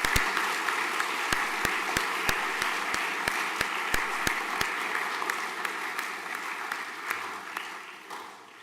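A school audience applauding, with a few louder single claps standing out, the applause dying away near the end.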